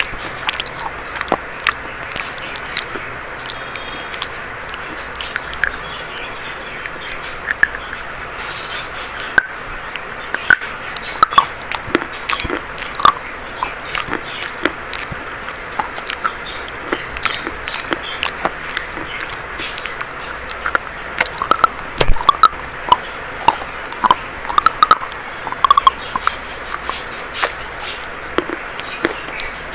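Dry chalk being bitten and chewed close to the microphone: irregular sharp crunches that come thicker and louder about two-thirds of the way through.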